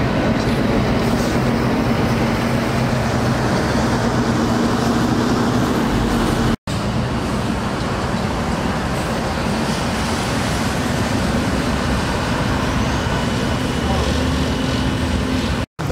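Street traffic and engines running steadily with a low drone, from road works with an asphalt paver and dump trucks. The sound breaks off for an instant twice, about six and a half seconds in and near the end.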